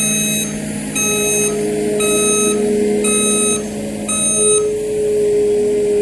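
Compact track loader's reversing alarm beeping about once a second, five beeps, then stopping a little over four seconds in, over the loader's engine running steadily: the machine backing up.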